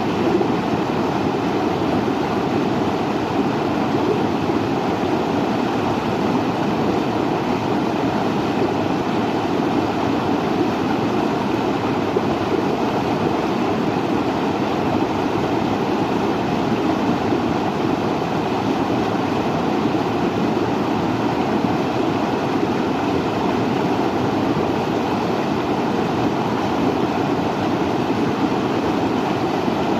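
Steady, unbroken rushing of water, an even noise without pauses or distinct events.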